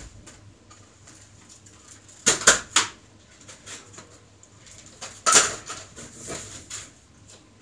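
Short clacks and knocks of objects being handled: a quick cluster of three or four about two and a half seconds in, another loud one about five and a half seconds in, and a few fainter ones after.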